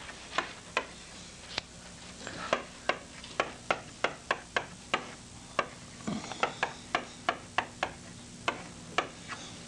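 Chalk writing on a chalkboard: an irregular run of sharp taps and short scrapes, two or three a second, as each stroke of the figures is made. A faint steady hum lies underneath.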